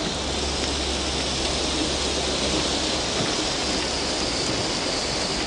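Heavy rain pouring down steadily. Underneath it runs a low steady rumble of a car engine, which is strongest in the first half.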